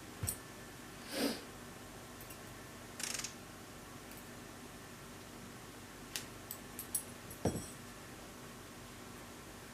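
Scattered handling noises over a steady hiss: a click, two short rustles, a few small clicks, and a soft thump about seven and a half seconds in.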